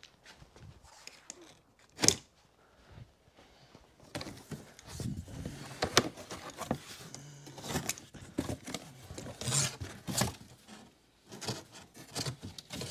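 Large cardboard box being opened by hand: flaps pulled open and cardboard scraping and rustling, with several sharp knocks. The loudest single sound is one sharp knock about two seconds in.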